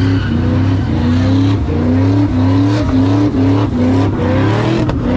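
A car engine revved hard in repeated rising surges, about two a second, each falling back sharply, over a steady low exhaust drone: a car doing a burnout or donuts in thick tire smoke.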